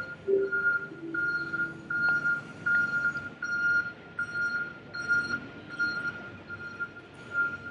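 A steady electronic beep repeating about every 0.7 seconds, over the last low notes of an airport public-address chime fading out in the first second or two.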